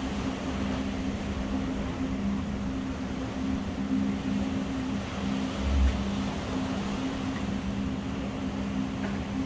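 Steady low mechanical hum with two tones that drop out and return, over a wash of noise, with a single low thump about six seconds in.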